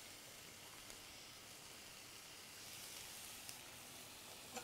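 Chopped vegetables and ginger sizzling faintly in oil in a frying pan.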